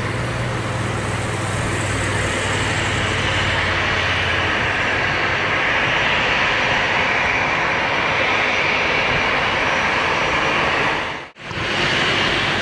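Airbus A320 jet engines running at taxi power while the airliner turns to line up for takeoff: a steady engine rush with a whine that grows stronger midway, over a low hum that stops about four and a half seconds in. The sound drops out for a split second near the end.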